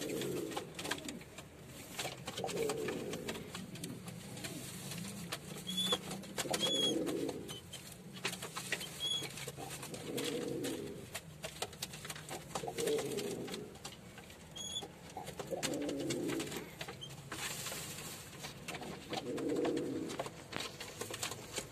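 Male domestic pigeon cooing again and again at a hen, a low coo phrase about every three seconds.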